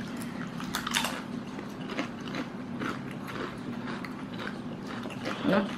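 A person biting into and chewing a crisp black ghost pepper potato chip: a run of short, irregular crunches.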